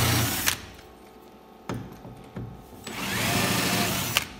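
Cordless drill with an 8 mm bit drilling out the heads of the rivets that hold a canoe seat. It runs in two bursts: one stops about half a second in, and another starts about three seconds in and stops just before the end.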